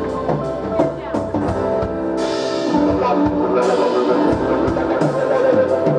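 Live rock band playing: drums and electric guitars over sustained chords, with cymbals ringing out for about a second and a half near the middle.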